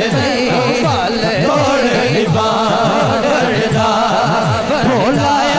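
Punjabi naat sung live through a sound system: a solo devotional melody over a steady, repeating low rhythmic backing, about three strokes a second.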